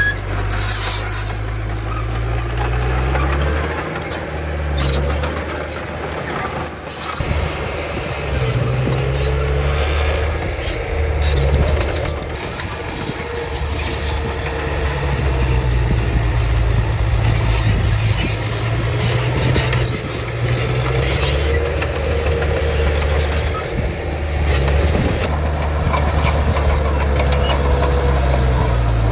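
Komatsu D31 crawler bulldozer's diesel engine running under load, its pitch and level rising and falling as it pushes soil, with a faint squeal that rises and falls.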